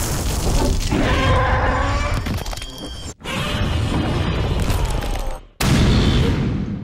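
Dubbed monster-fight sound effects: loud rumbling booms and crashes over music. The sound cuts off abruptly just after three seconds in, and again about five and a half seconds in, where a heavy crash begins as the tail strike lands and then dies away.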